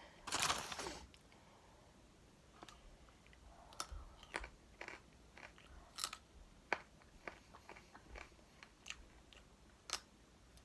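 Close-up eating sounds: a person biting into and chewing crispy fried chicken wings, with a loud crunch about half a second in and then a run of small crackling crunches and wet chewing clicks.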